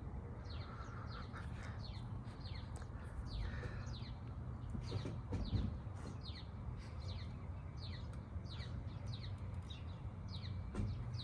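Birds chirping over and over, short falling chirps, over a steady low rumble.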